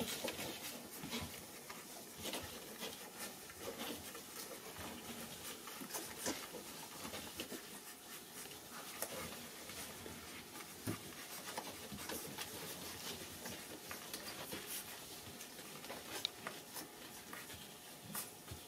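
Newborn English setter puppies suckling from their mother, making faint, irregular wet smacking and clicking sounds with their mouths.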